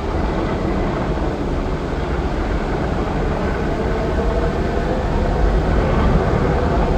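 Loud, steady roaring rumble of a tornado wind effect played over a theatre sound system, growing slightly louder near the end.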